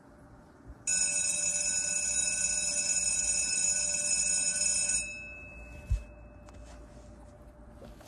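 Red electric school bell ringing: the striker drums the gong in one loud, continuous ring for about four seconds, starting abruptly and cutting off with a short fade. About a second after it stops there is a single thump.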